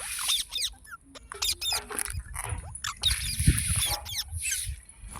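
Green parrot chirping in quick, short calls that sweep up and down in pitch, with a few harsher screeching squawks, the loudest about three seconds in.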